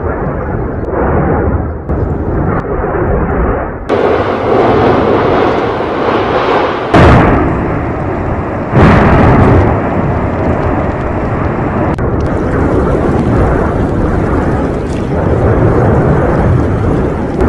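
La Palma's Cumbre Vieja volcano erupting: a loud, continuous deep rumble, with sudden louder blasts about seven and nine seconds in.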